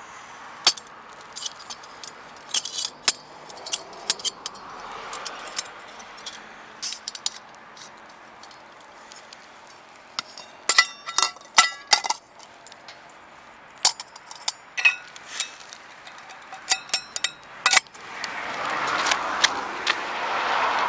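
Metal parts of a brass camp stove and its windscreen and cookware clicking and clinking as they are handled and fitted together. There is a quick run of ringing metallic clinks about eleven to twelve seconds in, and a louder stretch of noise near the end.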